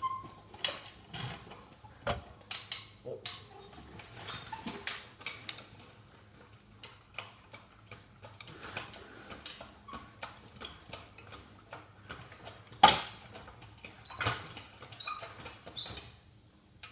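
Irregular light clicks and taps, with one sharper knock about thirteen seconds in.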